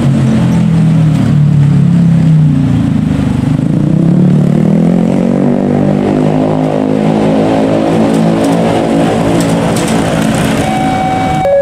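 Motorcycle and car engines in traffic crossing the railway tracks, falling in pitch and then picking up again as the vehicles pull away. About a second before the end, the level crossing's warning alarm starts: steady electronic tones held at one pitch.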